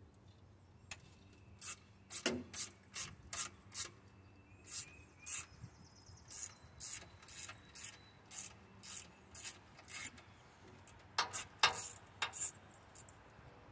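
Hand ratchet wrench working a rusted exhaust header bolt: short rasping strokes, roughly one to two a second, with the loudest pair near the end.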